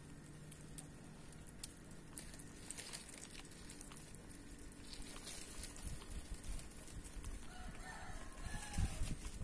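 A rooster crows once, about eight seconds in, over scattered rustles and soft knocks close to the microphone, with a heavier thump near the end.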